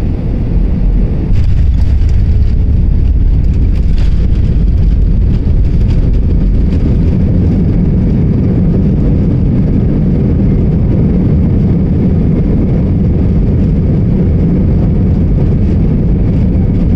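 Loud, steady low rumble of a jet airliner's engines and wheels on the runway, heard from inside the cabin during the landing roll. It swells about a second in and then holds.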